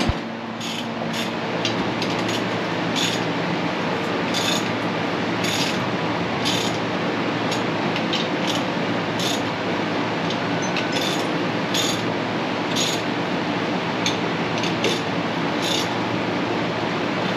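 Hand ratchet clicking in short strokes, roughly once a second, as the wheel is tightened back onto the ATV hub. A steady whoosh runs underneath throughout.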